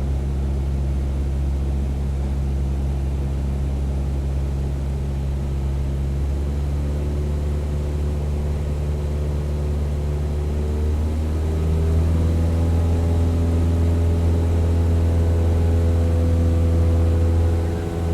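Steady low drone of an engine running, with a set of overtones. Its pitch steps up and it grows slightly louder about eleven seconds in.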